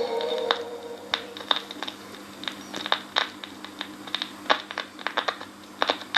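Rollet mange-disque portable record player running on after its 45 rpm single has ended: the last note of music fades in the first second, then soft irregular clicks over a steady low hum as the stylus rides the run-out groove. The auto-stop has not tripped, which the repairer puts down to the record lacking a little run-out groove.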